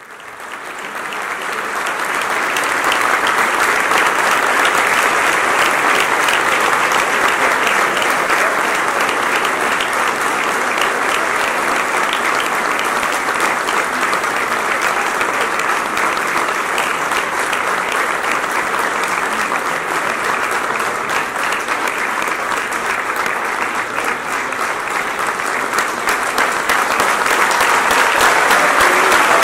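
A large audience applauding continuously, a long ovation that fades in over the first couple of seconds, holds steady and grows a little louder near the end.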